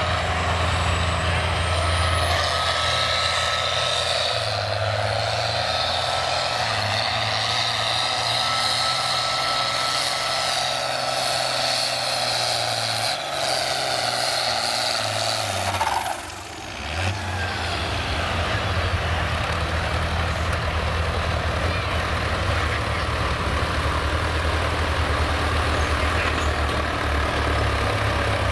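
Turbocharged International 1066 diesel tractor under full throttle pulling a weight-transfer sled, a loud, steady, heavy engine note with a thin whine over it. About sixteen seconds in the engine drops off sharply at the end of the pull, and a lower, steady engine sound runs on after it.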